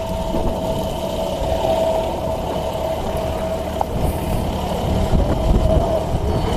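A motor vehicle's engine running steadily: a low, even rumble with a steady higher tone over it.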